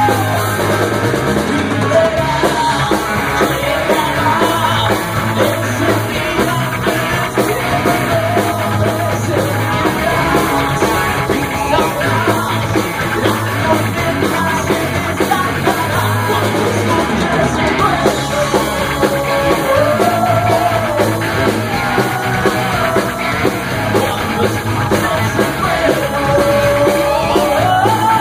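Live rock band playing loud, with electric guitars, keyboards and drums and a held, bending lead melody on top.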